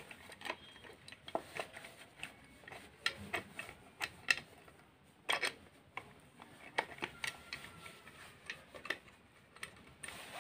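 Small light metallic clicks and taps, irregular and spaced out, of a nut and a small hand tool against the bolts and metal housing of a vacuum cleaner motor as the nuts are fitted and started on the bolts.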